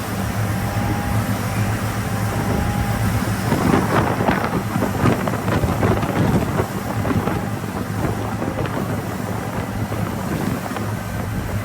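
Boat engine running steadily under wind noise on the microphone, with a louder rush for a few seconds in the middle.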